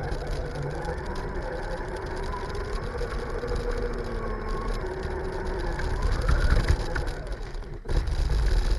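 Brushless electric motor of a Redcat Volcano RC truck whining under load as it pulls a weighted cart, the whine wavering slightly in pitch over a steady low rumble. The sound drops briefly about eight seconds in, then the rumble comes back louder.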